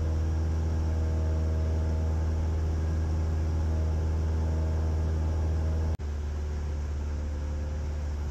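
Cessna 172's piston engine and propeller droning steadily, heard inside the cabin. About six seconds in the sound drops out for an instant, then carries on slightly quieter and duller.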